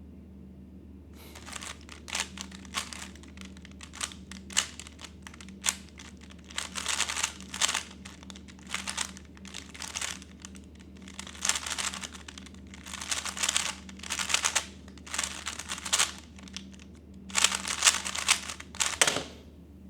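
3x3 Rubik's speedcube being turned rapidly during a timed solve: quick clacking of the layers in bursts of turns with short pauses between, starting about a second in and stopping shortly before the end.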